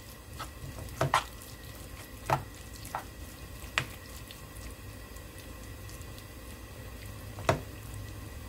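Seasoned pork being stir-fried in a nonstick pan with a wooden spatula: a low, steady sizzle and stirring, with about six sharp knocks of the spatula against the pan, the loudest about a second in and near the end.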